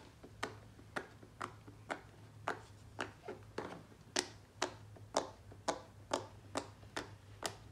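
Round rainbow silicone pop-it fidget toy having its bubbles pressed in one after another by a finger: short sharp pops at a steady pace of about two a second.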